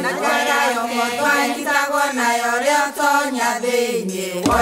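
Background music: a song with singing voices.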